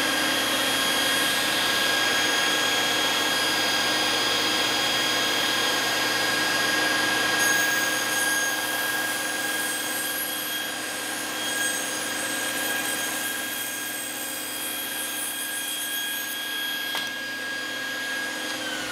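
Table saw running with a steady whine and the hiss of a shop vacuum drawing dust off the blade guard, as the blade trims a thin sliver off the end of a wide pine board fed slowly through the cut. The sound is a little louder in the first half while the blade is in the wood.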